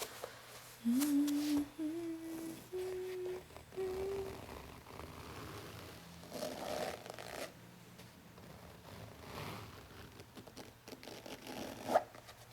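A person hums a short tune of a few steady notes. This is followed by soft scratching and peeling sounds and a sharp click near the end.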